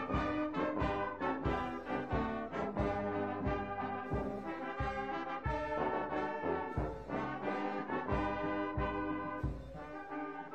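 Background music with brass chords over a steady beat of about two beats a second.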